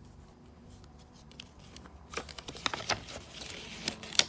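Hands handling a product box and its packaging: scattered clicks and rustles starting about halfway through, the loudest a sharp click near the end.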